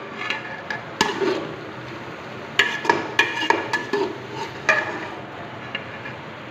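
Slotted metal spoon stirring and scraping vegetables and chicken in a metal pot, with several sharp clinks of spoon on pot, some ringing briefly, over a faint steady frying hiss.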